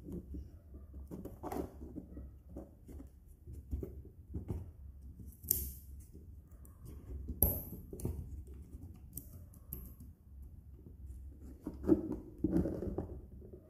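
Light plastic clicks and taps from fingers handling an opened earth leakage circuit breaker's housing and mechanism, scattered at irregular moments, a couple of them sharper, over a low steady hum.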